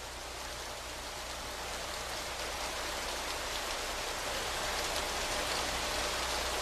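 Steady rain falling, a continuous hiss that grows gradually louder.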